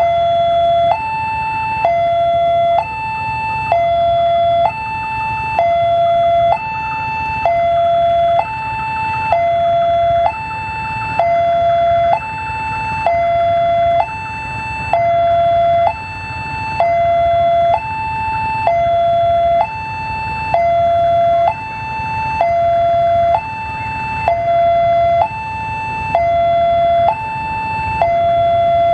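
Electronic railway level-crossing alarm sounding as a train approaches, alternating steadily between a lower and a higher tone about once a second. A low steady rumble from the approaching diesel locomotive runs underneath.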